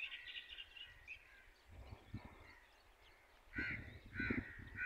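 A crow cawing: a run of three short, harsh caws from a little past halfway, each about two-thirds of a second apart. Before them come fainter bird chirps that fade out, and a few low rumbles.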